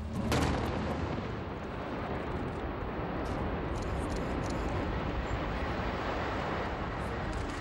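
Blasting in an open-pit gold mine: a sudden bang about a third of a second in, followed by a steady, heavy rumble that does not die away.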